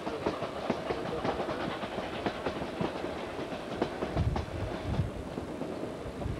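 Ride aboard a moving train: a continuous running rumble with many irregular clicks and clacks of the wheels over the rail joints, and a few heavier low thumps about four to five seconds in.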